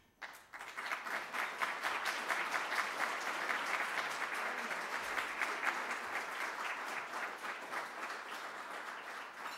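Audience applauding: many hands clapping together, starting just after the beginning and holding steady throughout.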